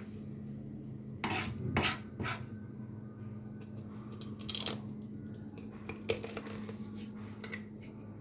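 Metal utensils clinking and scraping against cookware in a handful of separate strokes, over a steady low hum.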